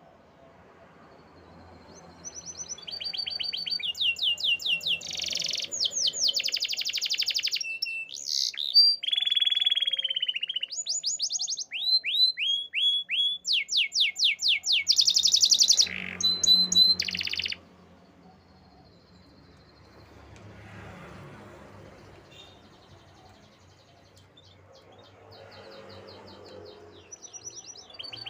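Canary song: rapid trills of quickly repeated high notes, phrase after phrase, then a lull of about ten seconds in the second half before the trills start again near the end.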